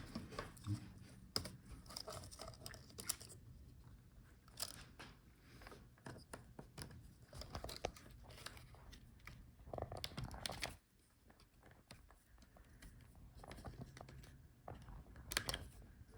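Faint scattered clicks, taps and light scraping from hands unplugging cable connectors from a laptop motherboard, including the video cable, with a few sharper clicks near the middle and near the end.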